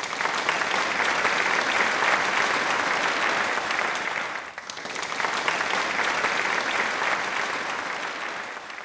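Crowd applause, dense steady clapping. It dips briefly about four and a half seconds in, then carries on and fades out near the end.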